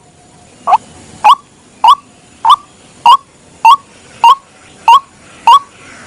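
White-breasted waterhen calling, a short upward-bending note repeated evenly about every 0.6 seconds, some ten times in a row: the repetitive call used as a lure for this bird.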